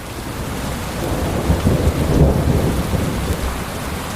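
Steady rain with a low rolling rumble of thunder that swells about two seconds in.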